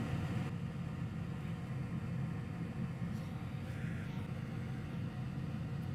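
Steady low hum with a faint, even hiss, the background drone of running bench equipment.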